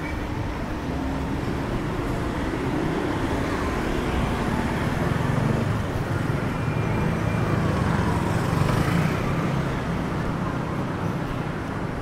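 City street traffic noise: vehicle engines running and passing, growing louder for a few seconds toward the middle before easing off.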